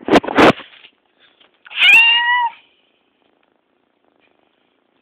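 A young ginger-and-white cat meows once, a single level call of under a second about two seconds in, after a brief scratchy noise at the start.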